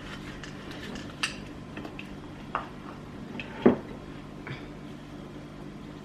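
Kitchen utensils and dishes knocking: a few light clicks and one louder knock a little past the middle, over a faint steady hum.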